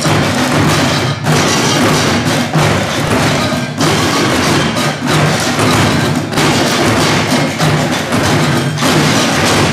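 Percussion ensemble beating plastic wheelie bins, buckets and pots with drumsticks: a dense, steady groove broken by a brief gap about every second and a quarter.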